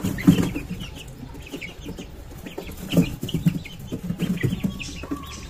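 Young chickens clucking in short, scattered calls, mixed with brief high cheeps.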